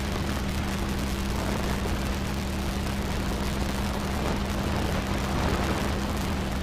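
Steady hiss with a constant low hum underneath, like the background noise of an old radio link or film soundtrack, and no distinct events.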